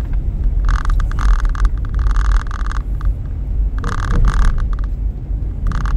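Road noise inside a moving car: a steady low rumble, with a buzzing rattle that comes and goes in several bursts of about a second each.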